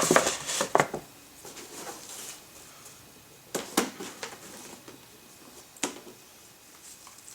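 Handling of a paper receipt and a cardboard box: rustling and small clicks in the first second, then two sharp taps about two seconds apart.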